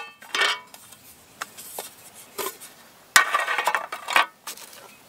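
Thin aluminium tabletop panels of an ultralight folding camping table being opened out and laid flat on a wooden stump: light metal clanks, clicks and scrapes, with a sharp knock about three seconds in followed by about a second of rattling.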